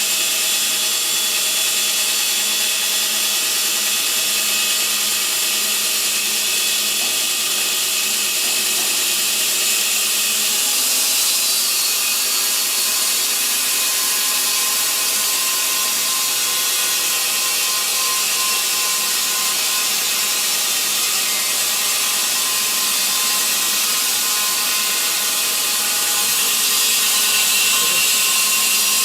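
Electric-motor portable horizontal band sawmill running and sawing through a log: a steady, loud hiss of the band blade over the motor's even hum, getting a little louder near the end.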